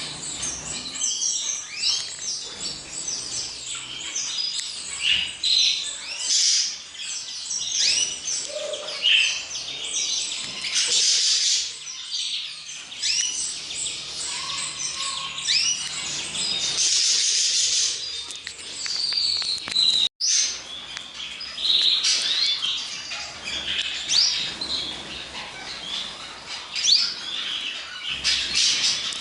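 Dense chorus of many small caged birds chirping and calling over one another, a steady mass of short, high chirps and trills. The sound briefly cuts out about two-thirds of the way through.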